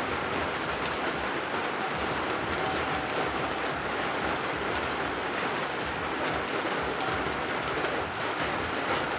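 Steady rain falling, an even continuous hiss of a persistent downpour.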